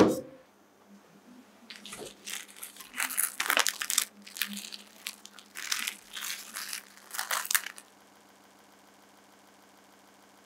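Plastic cling wrap being handled over a heat-proof dish, crinkling and rustling in a run of uneven bursts that stop about eight seconds in.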